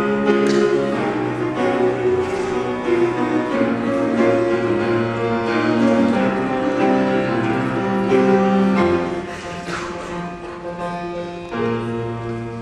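Instrumental music with long held notes and chords, turning softer about nine seconds in.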